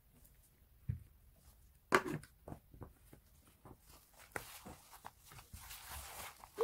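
A gloved hand kneading minced chicken into corn starch in a disposable plastic bowl: glove rustling and squishing, with scattered knocks against the bowl, the sharpest about two seconds in, and denser rustling in the second half.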